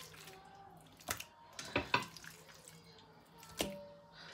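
Raw chicken pieces dropped one at a time into a stainless steel bowl of thick yogurt marinade, making about four short wet plops and knocks.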